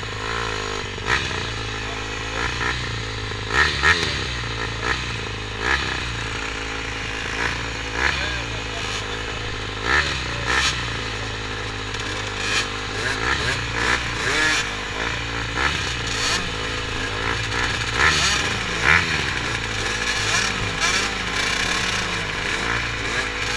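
Several motocross bike engines idling at the start line, their pitch wavering up and down with small blips of the throttle, with short sharp knocks now and then.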